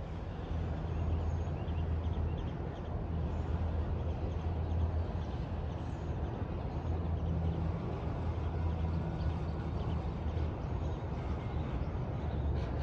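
Disney Skyliner gondola system running: a steady low hum and rumble under an even rushing noise.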